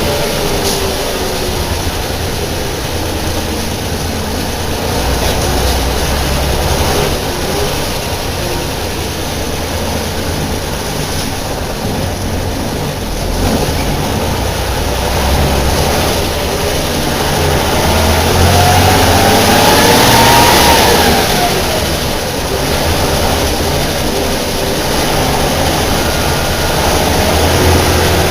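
Deutz BF6L 913 C air-cooled turbo-intercooled six-cylinder diesel of an El Detalle OA 101 bus running, with a steady low rumble. About two-thirds of the way through, a whine climbs in pitch for a few seconds, then drops back.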